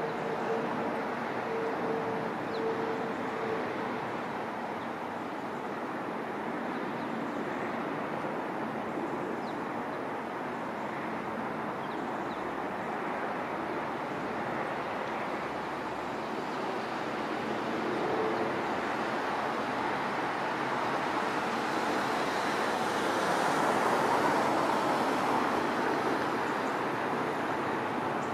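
Steady rushing jet engine noise from aircraft, growing louder near the end, with a faint steady tone during the first few seconds.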